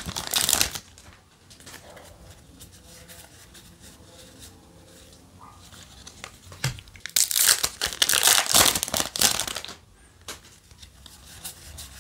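Foil booster-pack wrapper crinkling as it is torn open and handled, in two loud spells: at the very start and again from about six and a half to ten seconds in. Between them, quieter rustling of trading cards being handled.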